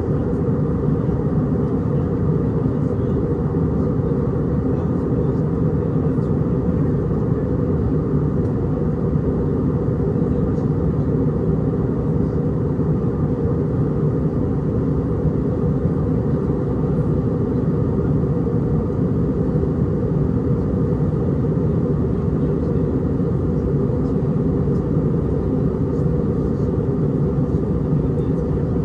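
Steady in-cabin drone of an Airbus A319-100 airliner on its approach, from its CFM56 turbofan engines and the airflow over the fuselage. It is a constant low rush with no change in pitch or level.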